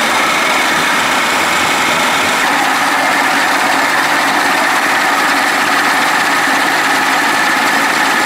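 An engine or motor running steadily, with no change in speed.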